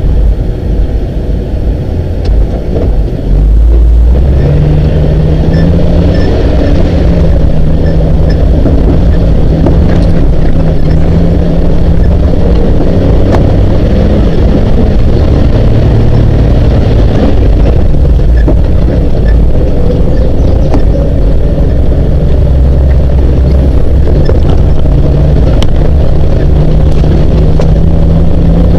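Jeep CJ7's engine running as it drives a dirt trail, its pitch shifting up and down with the throttle; it gets louder about four seconds in, with occasional faint knocks and rattles over the bumps.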